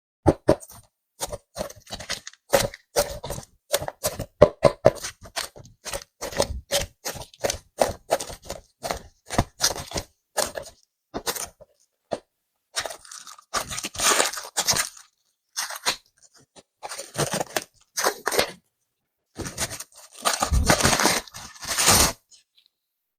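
Clay packaging being handled and opened: a dense run of sharp crackles and clicks, with two longer stretches of rustling, about halfway and near the end.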